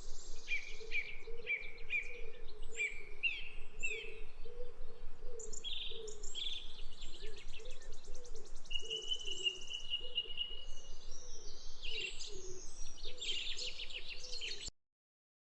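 Parrots chirping and calling, many short calls overlapping, with a fast trill about halfway and a long held whistle just after. A faint wavering low hum runs underneath, and the sound cuts off suddenly near the end.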